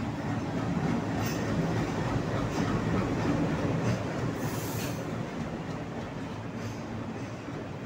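Diesel-hauled passenger train arriving slowly alongside a station platform, the locomotive and then its coaches rolling past with a steady wheel rumble. A brief high wheel squeal comes about halfway, and the sound eases off toward the end as the train slows.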